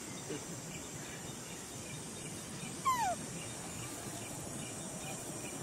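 A single short animal squeal, falling sharply in pitch, about three seconds in, over a steady high-pitched insect-like hiss.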